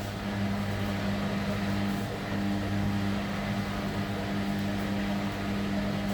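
Washing machine running with a steady low motor hum.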